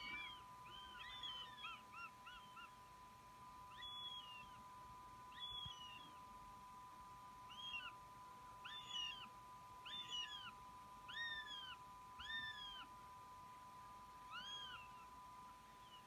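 Young northern goshawks giving thin, cat-like begging calls, each one rising and then falling in pitch. There are about a dozen of them, a quick run of short ones early on and then a steadier series about once a second. A steady faint electronic tone runs underneath.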